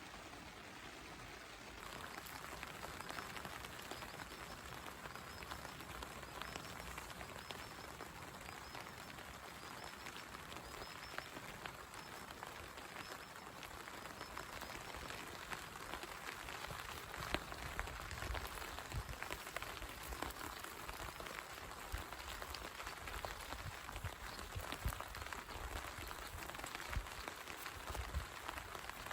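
Steady rain falling, with many small drops ticking and heavier drops thudding from about halfway through.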